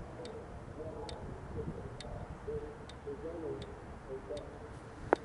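Quiet outdoor background in the pause between siren voice announcements: faint ticks about once a second, a faint wavering sound, and one sharp click near the end.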